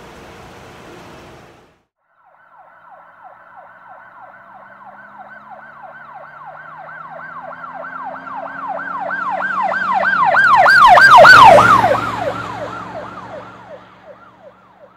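Police siren on yelp, a fast rising-and-falling wail repeating two to three times a second, with an engine drone under it. It grows steadily louder as the vehicle approaches, and both drop in pitch as it passes close, about two-thirds of the way through, then fade away. A brief hiss of car-cabin noise cuts off just before it.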